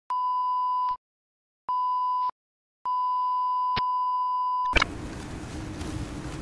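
Three electronic beeps of one steady pure tone, edited onto the sound track: about a second long, then half a second, then nearly two seconds, with dead silence between. About three-quarters of the way through, the beeps stop and the steady hum and hiss of a large terminal hall's background noise cuts in.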